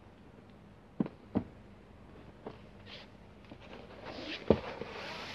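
Quiet room tone broken by a few sharp clicks or taps: two close together about a second in, fainter ones after, and a louder one about four and a half seconds in amid a rising rustle of handling noise.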